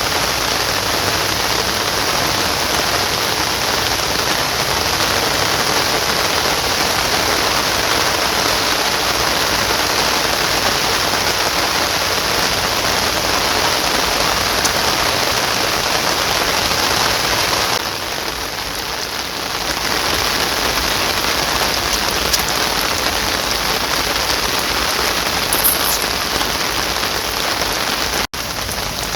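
Heavy rain falling steadily, easing briefly about two-thirds of the way through, with a momentary break near the end.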